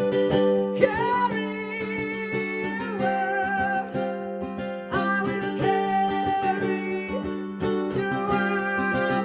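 Ukulele strummed and picked as the accompaniment to a sung melody, with held notes that waver about a second in and again about five seconds in.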